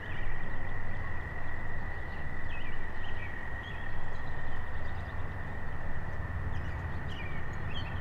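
Outdoor ambience: a steady high-pitched drone, with a few short bird chirps and a low rumble of wind.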